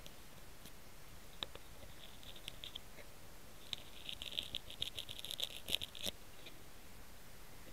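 Faint scratching and crackling of grass blades rubbing against the onboard camera of a homemade quadcopter lying upside down in the grass, with no motor running. The crackles thicken from about four seconds in and end in a sharp click about six seconds in.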